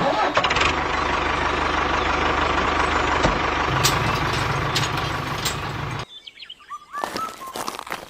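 A motor running steadily with a low hum, which stops abruptly about six seconds in; birds chirp after it stops.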